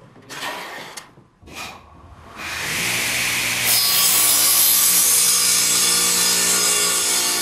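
A few short strokes of a hand plane shaving wood, then a radial arm saw starts with a steady motor hum and, from about four seconds in, cuts into wood, louder and brighter.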